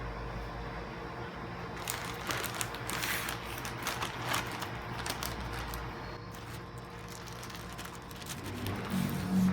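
Handling noises: a quick, irregular run of clicks and crinkles from about two seconds in, as of a product box and its packaging being handled. Music comes in near the end.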